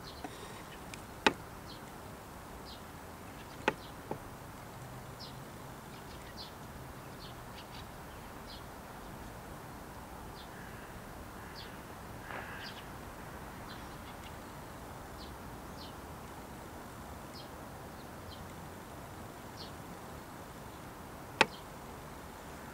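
Steady faint background noise with short high chirps from a small bird, repeating irregularly about once a second. Three sharp clicks stand out: about a second in, about four seconds in, and near the end.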